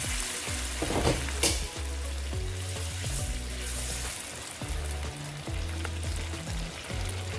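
Vegetables sizzling in a frying pan as hot water is poured in, then stirred and scraped with a wooden spatula. Background music with a steady bass line plays underneath.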